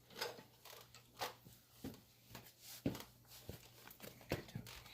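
Faint, irregular light clicks and knocks, about six in five seconds, of tire spoons and hands working a tire and tube onto a small dirt-bike wheel rim.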